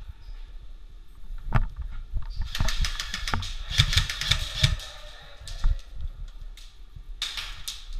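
Airsoft electric guns (AEGs) firing rapid bursts as suppressive fire: a dense rattle of shots and BB impacts, heaviest from about one and a half to five seconds in, with another short burst near the end.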